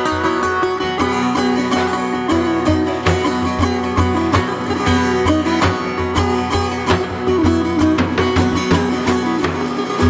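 A setar, the Persian long-necked lute, plucked in a running melody over a daf frame drum struck by hand in a dense, steady stream of beats.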